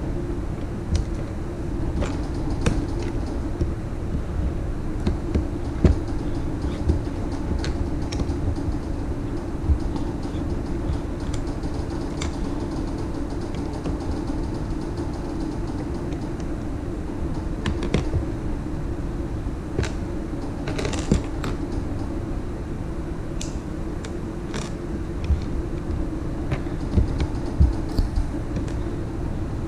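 Plastic toy pieces clicking and knocking now and then as they are handled, over a steady low hum.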